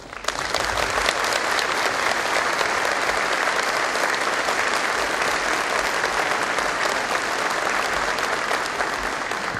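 An audience applauding steadily, starting all at once and easing off near the end.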